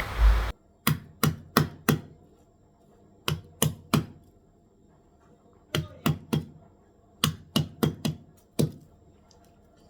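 Garlic cloves being pounded: sharp knocks in short runs of three to five, about three a second, with pauses between the runs.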